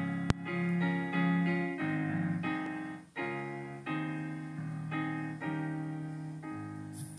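Piano playing the introduction of a hymn tune in a slow series of chords, each struck and left to fade. A sharp click about a third of a second in.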